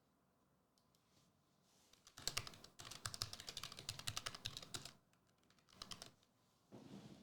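Typing on a computer keyboard: a quick run of key clicks lasting about three seconds, starting about two seconds in, then a few more keystrokes near the end.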